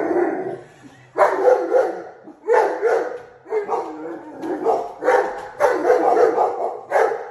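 A dog barking excitedly at lions on the television: a run of short, gruff barks in clusters, roughly two a second, with brief pauses between clusters.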